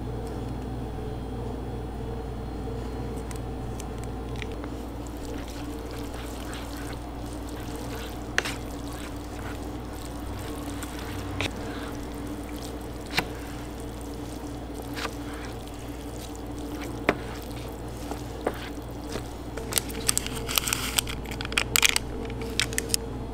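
Steady machine hum with scattered light clicks and taps, and near the end a run of crinkling as a seasoning packet is shaken out over a bowl of instant noodles.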